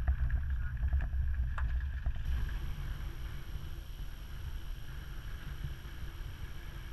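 Low rumble of a van driving on a gravel road, engine and tyre noise, with a few light clicks. About two seconds in, it gives way to a quieter, steady low rumble.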